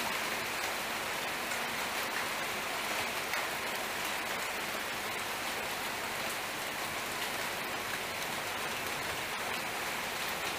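Steady rain: an even hiss with faint scattered ticks of drops.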